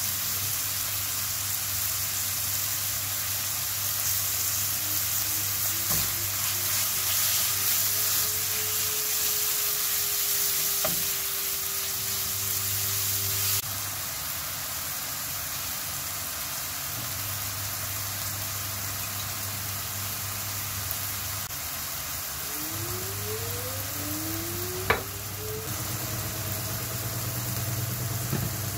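Ground beef and diced onion sizzling in a frying pan while being stirred, with a single sharp click near the end.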